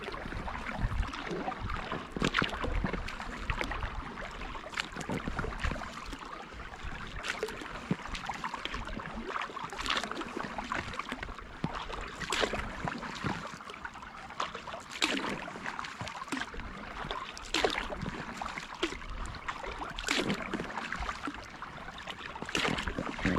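Kayak paddle strokes on calm water: a splash as a blade dips in about every two and a half seconds, with water trickling and dripping off the paddle between strokes.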